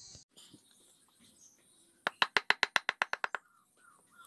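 A wooden mallet tapping the handle of a carving gouge in a quick run of about a dozen light strikes, roughly nine a second, starting about two seconds in and fading off as the gouge is driven along a cut in the wood.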